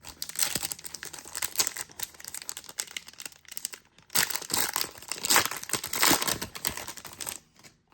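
Trading card booster pack wrapper being torn open and crinkled by hand, a dense crackling with a short pause about halfway through.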